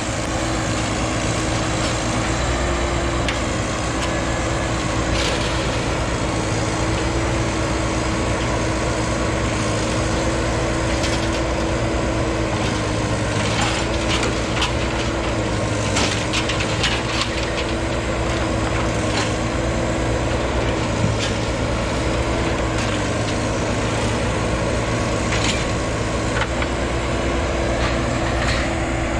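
Heavy diesel machine engine running steadily under load, with scattered short cracks and snaps over it.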